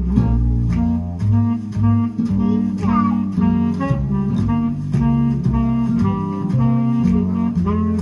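Recorded music played through Klipsch Forte II loudspeakers driven by an 845 single-ended triode tube amplifier with 300B and 6SN7 driver tubes: a rhythmic passage of plucked guitar notes over a bass line.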